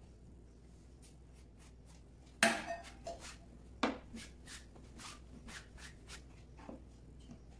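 Kitchen knife and utensils handled on a plastic cutting board: two sharp knocks about a second and a half apart, the first the loudest, then a run of lighter taps and scrapes as the board is scraped and wiped clean.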